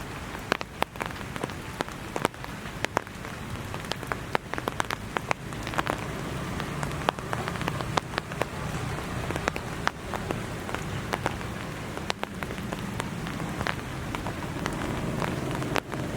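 Rain falling, with many irregular sharp drops ticking on a hard surface over a steady patter.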